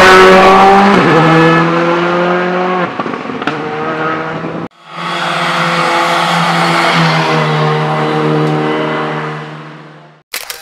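Rally car engines at full throttle. One car passes close by, its pitch stepping down about a second in at a gear change. After a sudden cut, a second car, a Škoda Fabia R5, comes up at a steady high note and fades away near the end.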